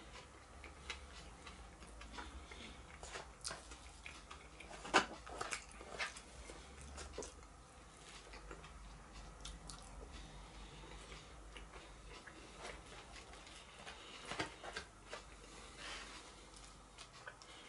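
Close-up eating sounds: a metal fork clicking and scraping as it picks vegetables out of a cardboard takeaway box, with soft chewing between. Irregular small clicks, the sharpest about five seconds in and a few more around fourteen seconds.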